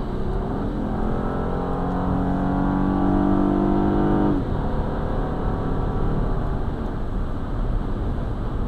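Car accelerating at highway speed, heard from inside the cabin: steady tyre and road noise with an engine drone whose pitch creeps up. The drone drops away suddenly about four seconds in, leaving the road noise.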